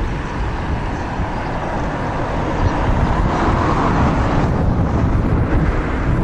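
A Class 158 diesel multiple unit approaching, its engine and running noise getting a little louder, under a low rumble of wind on the microphone.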